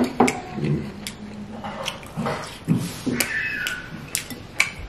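Close-miked chewing and slurping of oxtail soup with noodles: irregular wet mouth sounds with many sharp clicks and smacks, and a brief squeaky slurp a little past three seconds.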